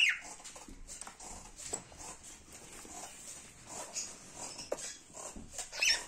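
Budgerigars chirping and chattering, with a sharp falling chirp at the start and another shrill call near the end, and soft little chirps in between.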